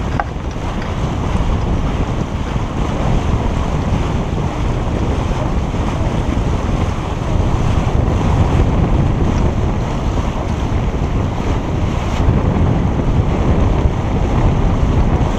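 Steady wind noise buffeting the microphone, over water rushing along the hull of a sailing yacht under way.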